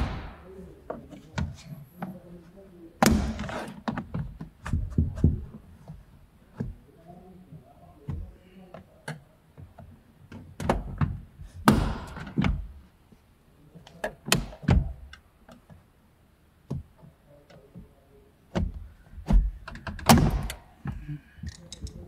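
Irregular knocks, clicks and thunks of hands and tools working on a car door's interior trim and fittings, with a few short scraping stretches.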